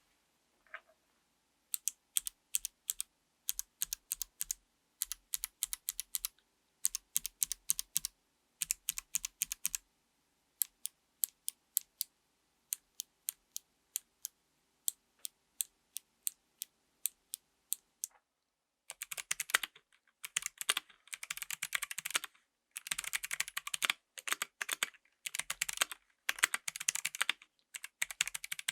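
Mechanical keyboard with Kailh BOX White clicky switches being typed on, each keystroke a crisp click. Keys go down in short clusters at first, then one at a time about twice a second, and from about two-thirds of the way in, fast continuous typing.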